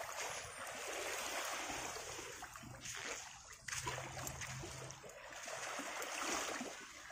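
Small waves lapping and washing over a pebbly shoreline, the splashing swelling and fading every couple of seconds.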